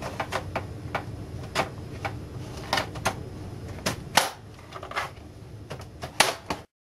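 Plastic snap-fit tabs of an LCD monitor's case clicking and snapping as the back cover is worked loose by hand: irregular sharp clicks, a louder snap about four seconds in and another near the end.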